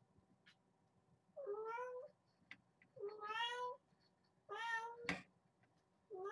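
Kitten meowing: three calls about a second and a half apart, each bending up in pitch and then held, with a fourth starting near the end. There is a single sharp click just after the third meow.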